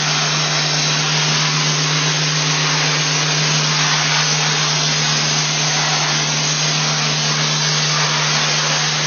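Dustless Blasting wet abrasive blaster spraying a water-and-abrasive mix onto steel pipework: a loud, steady hiss with a constant low hum underneath.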